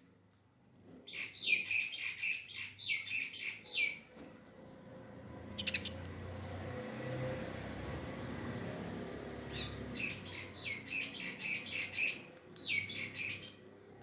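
Small caged parrots chirping in quick runs of sharp, high calls, in bouts. In a gap of several seconds between the bouts, a low rushing noise swells and fades.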